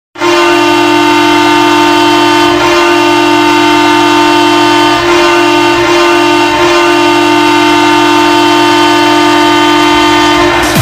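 Ottawa Senators' arena goal horn blowing one long, loud, steady blast of about ten seconds.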